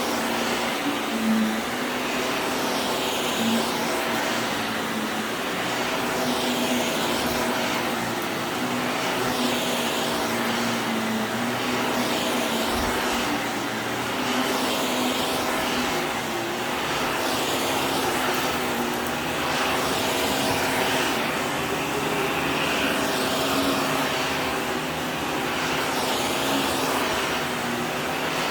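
Vacuum cleaner running steadily with a constant motor whine, its sound swelling and fading slightly every second or two as it is pushed back and forth over the floor.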